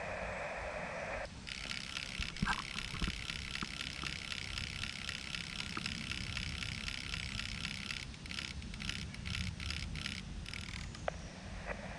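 Xiegu X5105 transceiver's built-in automatic antenna tuner tuning on 40 metres. The receiver hiss from the radio's speaker cuts off about a second in as the rig keys up to tune. A higher, steady hiss follows, with a few sharp relay-like clicks, and it breaks up near the end.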